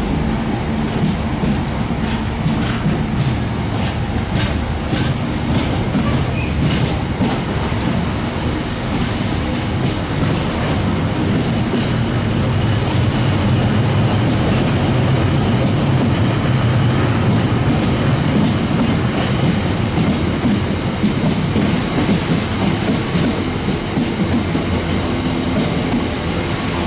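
A train running through the station: a steady rumble of wheels on rail with repeated clicks as the wheels pass over rail joints, thickest in the first few seconds.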